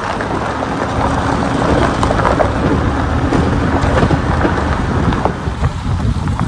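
Vehicle driving on a rough road: a steady low rumble of tyres and running gear, with many small crackles and clicks scattered throughout.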